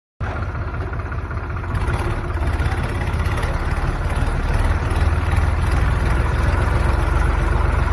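An engine running steadily at low speed, a deep rumble that grows a little louder after about two seconds.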